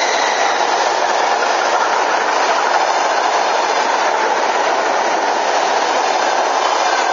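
ER2T electric multiple unit passing close by at speed, its wheels and running gear making a loud, steady rushing rumble on the rails.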